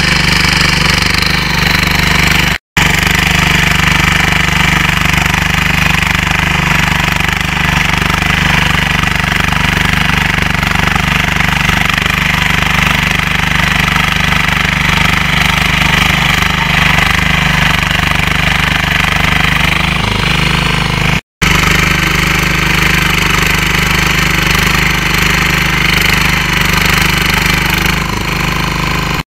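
Yağmur YET-510 walk-behind rotary tiller's small engine running steadily under load as its tines churn through soil. The sound is loud and steady, broken twice by split-second gaps.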